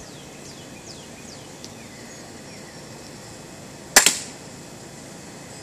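A pellet air pistol fired once, a single sharp crack about four seconds in with a short ringing tail.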